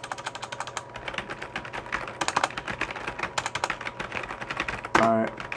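Fast typing on a computer keyboard: a quick, uneven clatter of key presses with short pauses between runs. A brief voice sound cuts in near the end.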